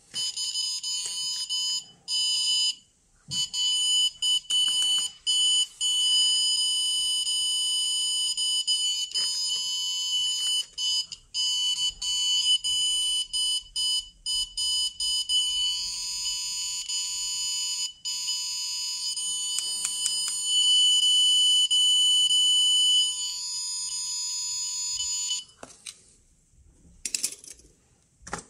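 Geiger counter's piezo beeper buzzing as one continuous high tone, broken by many short gaps, louder for a few seconds before it stops near the end.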